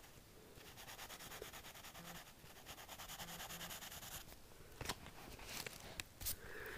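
Pencil rubbing quickly back and forth across notebook paper, a fine scratchy rasp of rapid strokes, as in shading. In the last couple of seconds it gives way to three sharp knocks.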